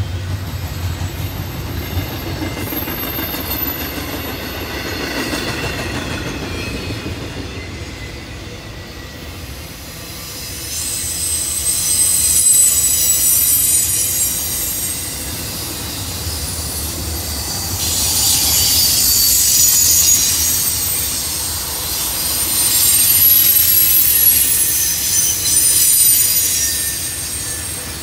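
A train rolling by with a steady low rumble. From about ten seconds in its wheels squeal: a high-pitched ringing that swells and fades in several loud waves before easing off near the end.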